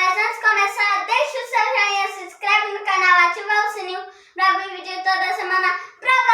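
A child singing unaccompanied in a high voice, holding notes in several phrases with short breaks between them.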